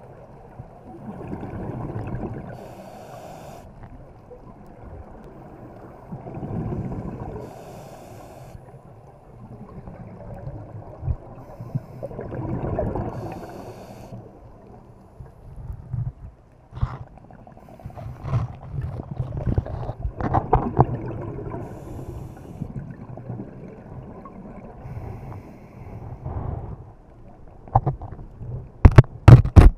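Underwater scuba breathing through a regulator: slow cycles about every five to six seconds, each a rush of exhaled bubbles and a short hiss. In the second half come irregular clicks and knocks, ending in several loud sharp knocks near the end.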